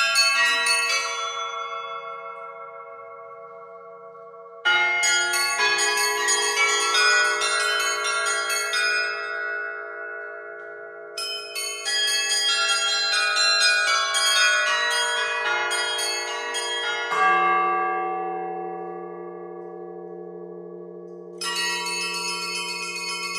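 A set of eleven Orthodox church bells rung from a rope-and-pedal console, their clappers pulled by ropes: quick runs of small treble bells over larger ringing bells. The strikes come in bursts with lulls in which the bells ring on, and a deeper bell comes in about two-thirds of the way through.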